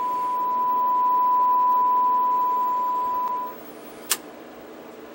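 A steady 1 kHz test tone plays from the Admiral 20B1 television's speaker. It is the FM-modulated test signal recovered by the set's ratio detector after sound IF alignment. The tone cuts off about three and a half seconds in, and a single sharp click comes half a second later as the front knob is turned, likely the set's switch turning off.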